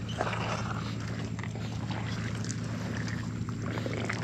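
Irregular sloshing of shallow water as a person wades across a flooded mudflat, over a steady low hum.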